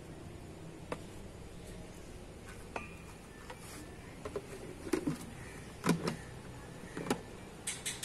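Wooden ladle tapping and scraping against a stainless steel pot as ghee is spooned in, a few scattered clicks and knocks that come closer together in the second half, over a low steady hum.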